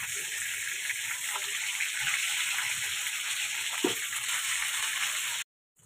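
Masala-coated fish pieces sizzling steadily in hot oil in a kadai, with a brief knock of the spatula against the pan just before four seconds in. The sound cuts off suddenly near the end.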